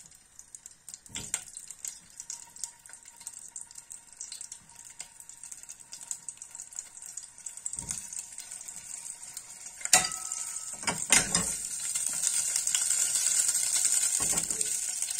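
Cherry tomatoes frying in olive oil in a saucepan, crackling lightly at first. Two sharp knocks come about ten seconds in, after which the sizzle grows steadily louder.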